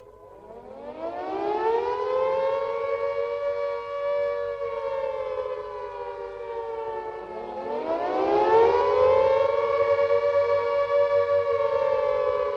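Civil defense siren sounding two wails. It winds up from a low pitch over about two seconds, holds with a slight sag, then winds up again about seven and a half seconds in and holds its tone.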